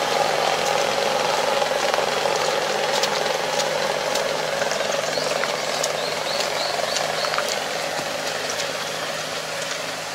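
Farm tractor engine running steadily, fading slowly as the distance grows, with scattered light clicks and rattles.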